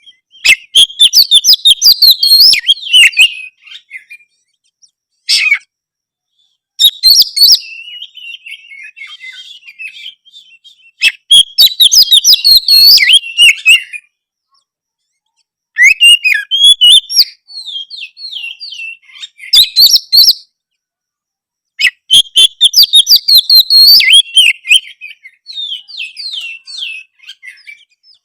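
Oriental magpie-robin (kacer) in full loud song: bursts of rapid, varied whistles and chattering notes, each a few seconds long, with short pauses between them.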